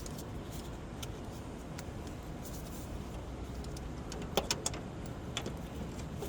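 Tools and metal parts clinking during hand work on a car's suspension: scattered light clicks and a quick cluster of three sharp clinks about four and a half seconds in, over a steady low rumble.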